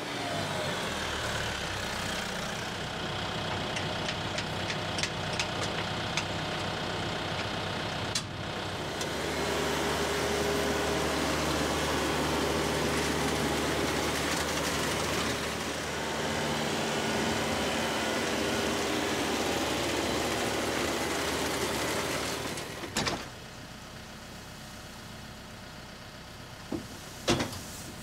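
A tractor engine runs steadily while a Gehl round baler works behind it. The sound gets quieter a little past three quarters of the way through, with a couple of sharp knocks after that.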